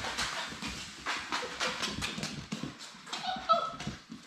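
Labrador Retriever puppies' claws clicking and tapping on a hard floor as they scamper around. About three and a half seconds in comes one short, high puppy cry with a slightly falling pitch.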